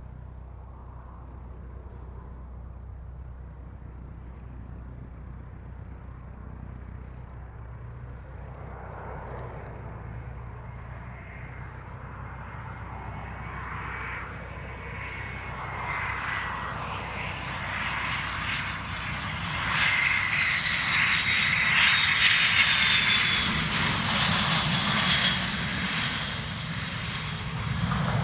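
Cessna Citation business jet's twin turbofan engines on a landing approach, growing steadily louder as the jet comes in low. As it passes, high engine whines slide down in pitch, and the sound is loudest a little past the middle.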